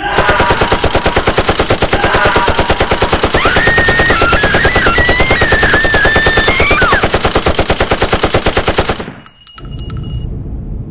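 Harsh noise music, loud: a dense, rapid stutter of distorted noise at about eight pulses a second, like machine-gun fire, with a wavering high squeal through the middle. It cuts off suddenly about nine seconds in, leaving a quieter low rumble.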